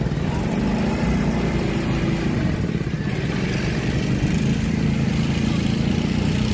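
A motor vehicle's engine running with a steady, even hum.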